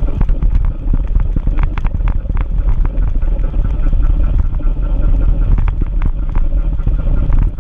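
Wind buffeting the camera microphone and tyre rumble from a bicycle running downhill on asphalt, with irregular rattles and clicks from the bike and the dog carrier.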